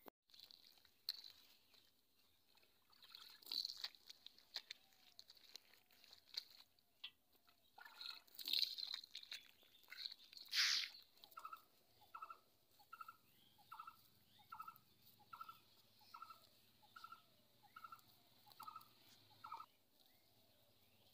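Hands slapping and smoothing wet mud, with soft squelches and splashes; the loudest wet slap comes about halfway through. From there on, an animal's short call repeats evenly about a dozen times, roughly three calls every two seconds.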